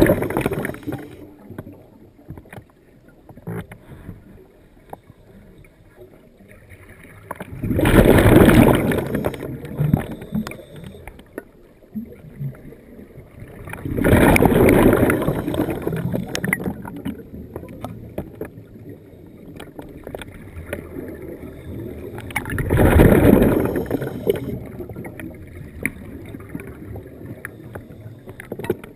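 Underwater scuba breathing: the diver's regulator exhaust releases bubbles in three long bursts of about two seconds each, spaced six to nine seconds apart, with faint crackling and clicks between breaths.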